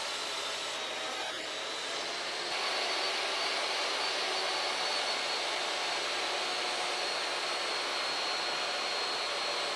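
A motor-driven shop machine running steadily: an even rushing noise with a thin high whine, growing a little louder about two and a half seconds in.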